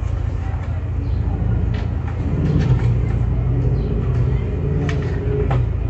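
A steady low rumble, with a droning tone that swells for a few seconds in the middle and a few light clicks.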